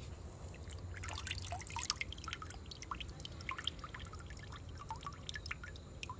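Water splashing and pouring off a cupped hand lifted out of a shallow pond about a second in, then dripping back into the water in many small plinks.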